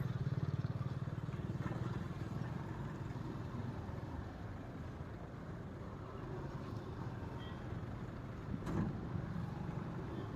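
Steady low rumble of tyre and engine noise from a vehicle driving along a highway, with a single short thump about nine seconds in.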